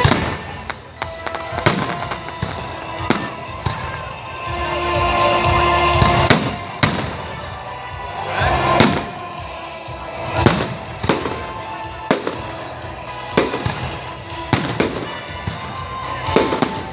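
A fireworks salute: shells bursting in sharp bangs, about fifteen of them at irregular spacing, some with a short crackle after them, over music playing underneath.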